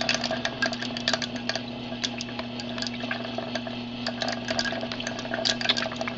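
Tornado-simulator machine running turned up high: a steady motor hum with many irregular clicks and crackles over it.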